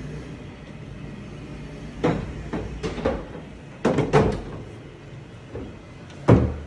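Tall pull-out display panels sliding on their runners and knocking against their stops: a run of clacks and knocks, with the loudest thump about six seconds in.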